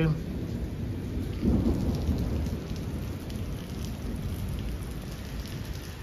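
Steady rain falling during a thunderstorm, with a low rumble of thunder that swells about a second and a half in and slowly fades.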